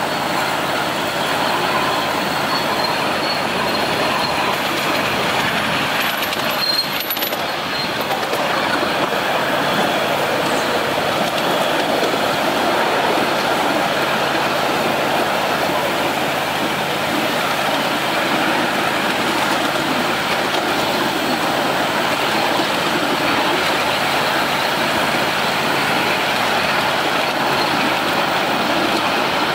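Ride-on miniature railway train running along its track, heard from a passenger car: a steady rolling noise of small wheels on rail, with one short knock about seven seconds in.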